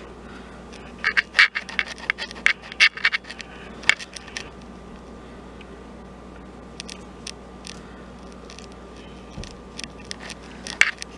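Silicone spatula scraping and knocking against a glass mixing bowl as flour is stirred into cookie dough. A quick run of scrapes and knocks in the first few seconds, then only scattered light ticks.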